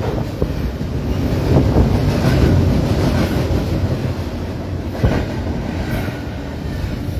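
Double-stack container freight train rolling past close by: a steady rumble of steel wheels on rail, with a few sharper clanks from the cars.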